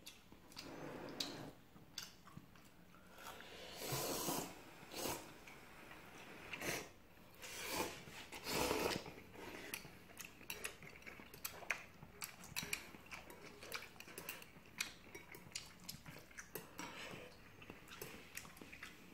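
Tableware clinking at a meal of ramen: metal chopsticks and tongs tapping against ceramic bowls and a pot in many small, irregular clicks, with a few louder stretches of eating noise.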